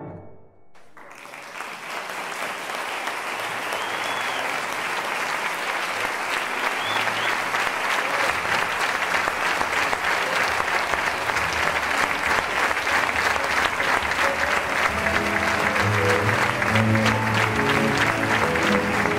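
Theatre audience applauding. The clapping swells up from a brief silence about a second in and holds steady, with a couple of short whistles in it. Music comes in under the applause in the second half.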